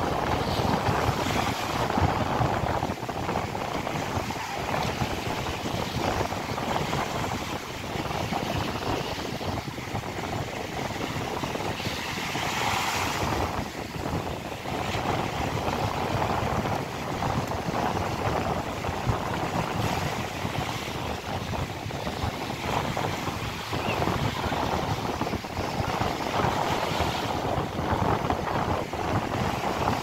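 Small Adriatic Sea waves breaking on a sandy beach, a steady wash with a louder surge about twelve seconds in, and wind buffeting the microphone.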